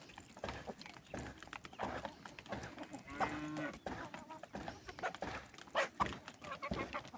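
Farm animals calling, with one drawn-out low call about three seconds in and short scattered calls and clicks around it.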